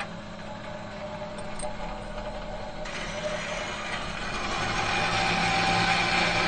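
A metal machine humming steadily, with a low held tone under a whirring noise. About three seconds in the sound turns brighter and hissier, and it grows louder toward the end.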